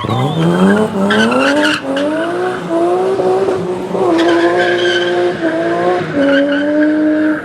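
Rally car engine pulling hard and climbing through the gears: the pitch rises, drops at each upshift and rises again, three or four times, with a couple of short hissing bursts along the way.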